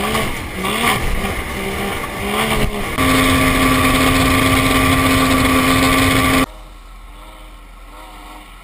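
Mercury 55 hp outboard motor on an inflatable race boat running at speed, its pitch swinging up and down about every 0.7 s, then holding a steady high pitch for about three seconds. It cuts off abruptly about two seconds before the end, leaving a much fainter engine sound.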